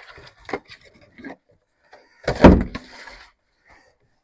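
Things being handled on a wooden workbench: a few light knocks, then a heavy thump about two and a half seconds in as a plastic jug of oil is set down on the bench.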